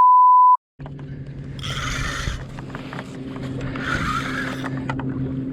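Censor bleep: a loud, pure single-pitch beep lasting about half a second at the start, cutting off abruptly. It is followed by a steady low hum with three short rushes of hiss about two seconds apart.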